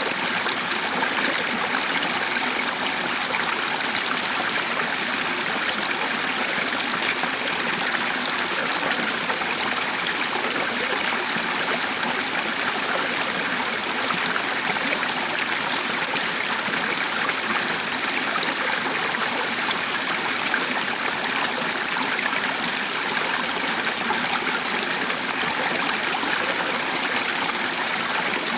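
A stream running steadily, a constant rush of flowing water with no change in level.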